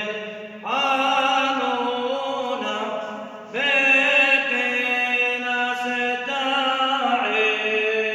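A man's solo voice chanting an Arabic liturgical prayer in long, held, melismatic notes. New phrases come in sharply about a second in, at about three and a half seconds, and again near the end.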